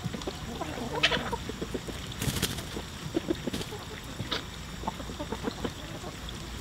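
A flock of chickens clucking in short, scattered calls while they forage, with one louder, sharper call about a second in.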